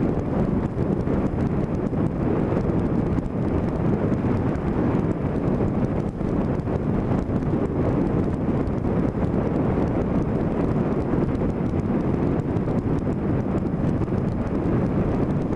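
Steady wind noise on the microphone of a motorcycle riding along at a constant speed, mixed with the ride's engine and road noise.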